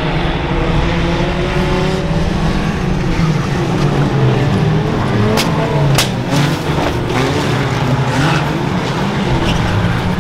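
Several banger-racing cars' engines running and revving together, their pitch rising and falling as they accelerate and lift off. Two sharp knocks about half a second apart a little past the middle.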